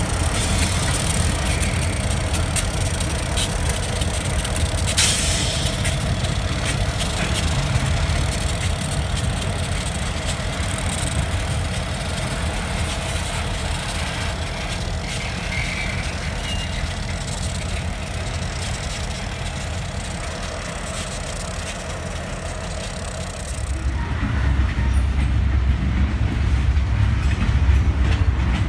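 Freight train moving off behind Union Pacific and Cotton Belt–painted diesel locomotives, the engines and wheels running steadily as the sound slowly fades. About 24 seconds in it changes abruptly to a louder, deeper rumble of boxcars rolling by close at hand.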